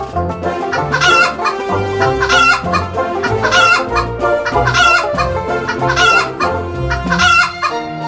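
Hen clucking over and over, about eight short calls roughly a second apart, over background music with a bass line.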